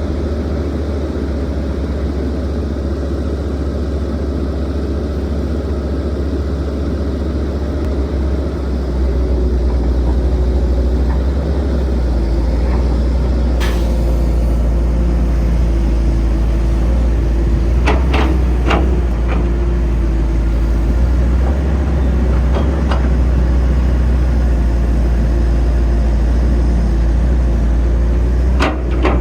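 Heavy diesel construction machinery running: the deep, steady rumble of an excavator loading a dump truck. The engine noise grows louder about nine seconds in, and a few sharp clanks and knocks come through later.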